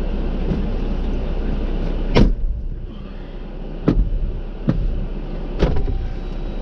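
A vehicle running with a steady low rumble, broken by four sharp knocks spread over a few seconds. The first and loudest comes about two seconds in, after which the rumble is quieter.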